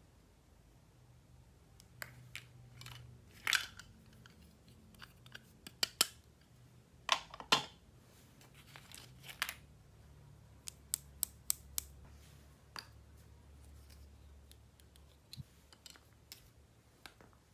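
Plastic toy pieces and packaging being handled: scattered taps and clicks with a few short scraping rustles, and a quick run of sharp clicks around the middle.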